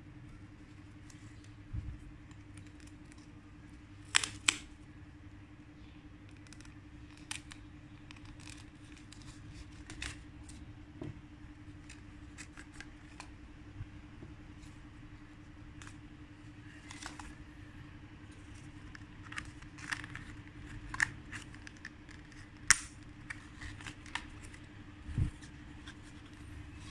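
Paperboard of a cardboard cockroach trap being folded and pressed into shape: scattered crinkles and sharp creasing clicks, a few louder ones, over a low steady hum.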